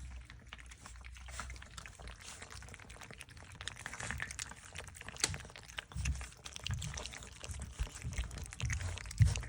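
Australian Labradoodle puppies lapping and licking wet puppy mush from a pan: a steady run of small wet clicks and smacks, with a few low thumps in the second half.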